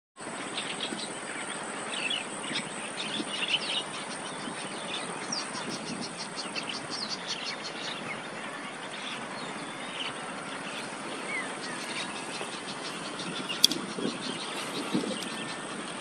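Small birds chirping and calling over a steady high hiss, with a rapid ticking insect trill for a few seconds in the middle. One sharp click late on is the loudest sound.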